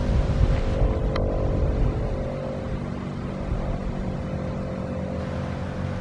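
Federal Signal STH-10 dual-tone outdoor warning siren sounding its steady alert chord, the tones holding level; it grows somewhat quieter about two seconds in.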